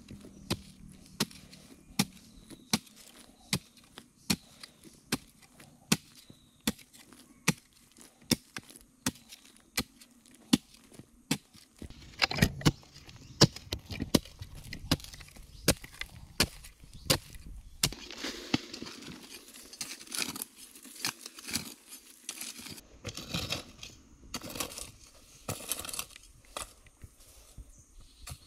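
A hoe chopping into hard, root-filled earth, one sharp strike about every three-quarters of a second. About halfway through the strikes come faster and mix with the scraping and crumbling of loose soil being pulled away.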